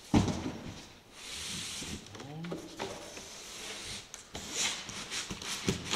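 Cardboard mirror-pack box pieces being handled and pushed together: a sharp thud just after the start, then cardboard sliding and scraping against cardboard, with scattered knocks.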